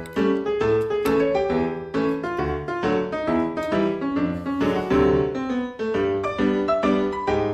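Background keyboard music: a quick run of bright notes over a repeating bass line.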